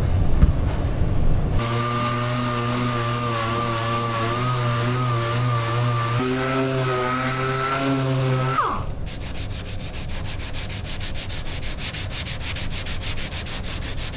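An orbital sander running steadily with a whine on cured body filler, then winding down with a falling pitch. After that, a hand sanding block scrubs the filler back and forth in quick strokes, about five a second.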